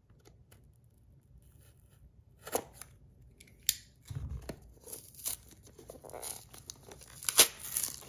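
Corrugated cardboard box being torn open by hand: a series of short rips and crackles, starting a couple of seconds in, with a dull thump in the middle and the loudest rip near the end.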